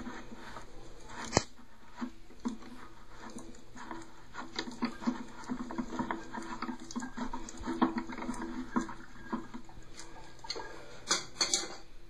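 Old Sloan FlushMate pressure-assist cartridge being turned slowly with the handles of channel lock pliers to work it loose: irregular plastic clicking and scraping. There is a sharp click about a second and a half in and a burst of louder clicks near the end.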